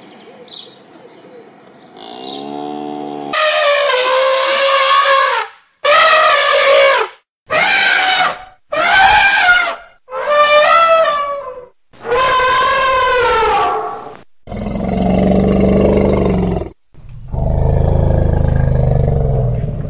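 A cow gives a short low moo, then an African elephant trumpets six times in loud, high, brassy calls of a second or two each, followed by two long, low rumbling roars near the end.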